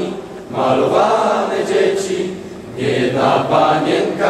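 A group of voices singing together in unison. One phrase dies away about two and a half seconds in, and the next begins at once.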